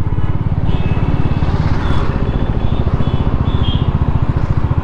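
Motorcycle engine running steadily under way, with short high-pitched tones sounding a few times over it.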